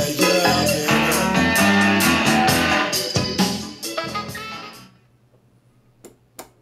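Guitar music playing loudly through a Sanyo MX-650K boombox's speakers, turned down to nothing about four and a half seconds in. Then two quick clicks from the boombox's controls, with a faint steady low hum from the unit left behind.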